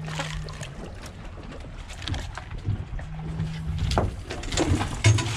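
Striped bass splashing at the side of a boat as it is lifted out of the water, over low boat rumble and wind on the microphone. A low steady hum comes in twice, and a sharp knock sounds about five seconds in.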